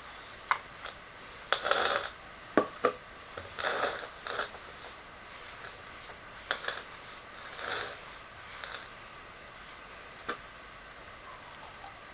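Hand-work handling noises: irregular scrapes and rubs with several sharp clicks, as parts and tools are worked on by hand.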